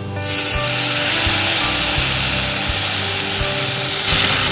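Tamarind pulp poured into hot coconut oil and sautéing okra in a clay pot, setting off a loud, steady sizzle that starts suddenly about a quarter second in.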